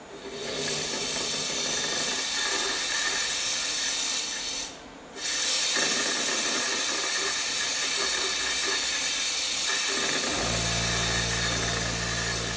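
Powder-coating gun blowing a steady hiss of air and powder, cut off briefly about halfway through and then resumed. A low steady hum joins near the end.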